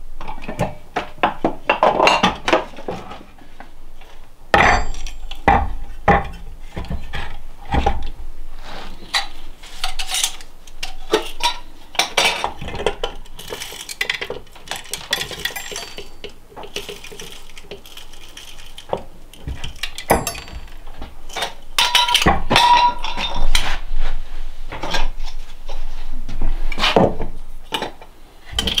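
Kitchen handling sounds at a wooden counter: irregular clinks and knocks of utensils, jars and dishes being picked up and set down on the counter and a wooden cutting board. A couple of clinks about two-thirds of the way through ring briefly.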